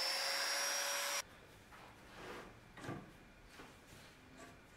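Festool Domino joiner's motor running with a steady whine, stopping abruptly about a second in; after that only a few faint taps.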